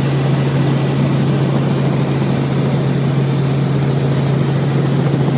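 Helicopter in flight, heard from inside the cabin: a loud, steady engine and rotor drone with a strong, unchanging low hum.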